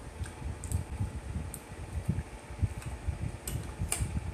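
Metal forks clicking against plates a handful of times, the sharpest clicks near the end, over a low uneven rumble.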